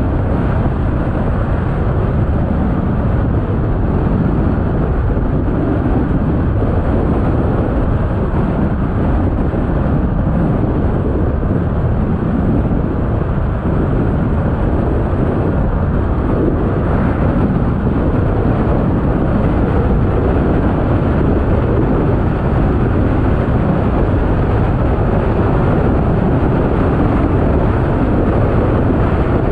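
Car driving steadily along an open road: an even, continuous low rumble of tyres on asphalt and engine.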